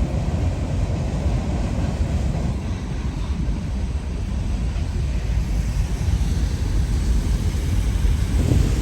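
Steady low rumble of vehicle traffic on a bridge overhead, heard from underneath it.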